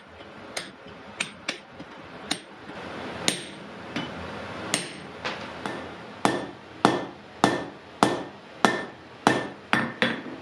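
Blacksmith's hammer striking hot iron on an anvil, each blow with a short metallic ring. The blows are spaced irregularly at first, then come as a steady, heavier run of under two a second over the last few seconds.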